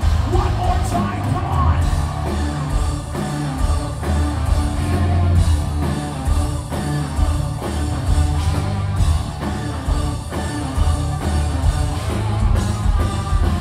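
Live progressive metal band playing loud: distorted electric guitars, heavy bass and pounding drums, with singing, heard from within the crowd in a concert hall.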